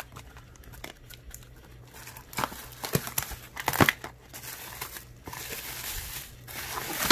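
Cardboard shipping box pulled open and plastic-bag-wrapped packages lifted out and handled: rustling, crinkling plastic with a few sharp cardboard snaps or tears, the loudest around the middle, and steadier crinkling in the second half.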